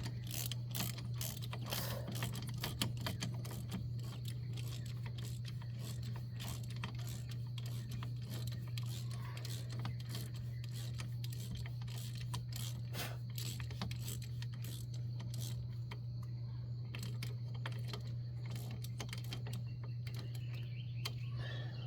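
Hand ratchet on a wobble extension clicking in quick, irregular runs as bolts are run home, over a steady low hum.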